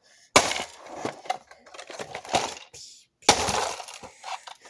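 Hammer blows on the plastic speaker housing of an Emerson iPod docking radio: two hard strikes, about three seconds apart, each followed by cracking and clattering plastic, with lighter knocks between them.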